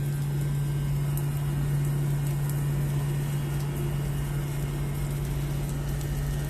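A steady low mechanical hum at one pitch, over a haze of rain with faint scattered drop ticks.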